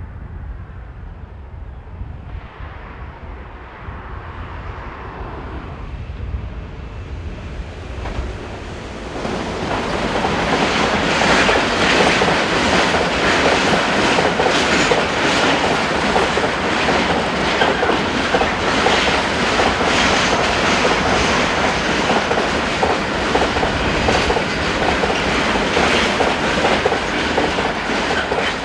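Freight train hauled by an E.494 electric locomotive approaching, then passing close by at speed: a building rumble, then about twenty seconds of loud, steady rattling and clickety-clack of the wagons' wheels over the rail joints, dropping off sharply at the end.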